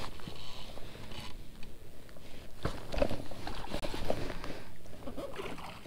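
Jacket fabric rustling and scattered knocks as hands and sleeve move against a chest-mounted microphone while working a fishing rod and reel.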